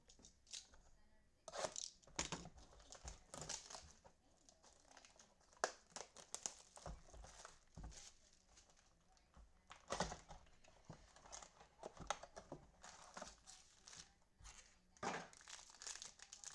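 Trading card pack wrappers crinkling and tearing as packs are opened and cards handled, in irregular rustles and small clicks.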